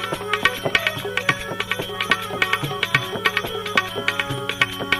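Instrumental break in a devotional bhajan: tabla playing a steady rhythm over a held drone and sustained melodic notes, with no singing.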